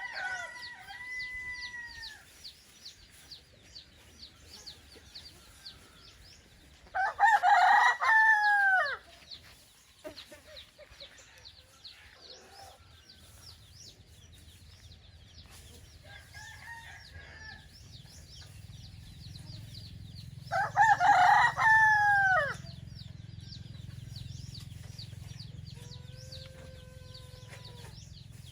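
Roosters crowing: two loud, full crows, with several fainter crows from birds farther off in between. Fast high chirping ticks run on underneath, and a low steady rumble comes up in the last third.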